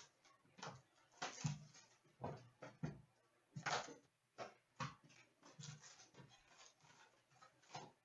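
O-Pee-Chee Platinum hockey card box being opened and its foil-wrapped packs handled, making a string of short, irregular rustles and crinkles of cardboard and wrapper. The loudest come about a second and a half in and again near four seconds.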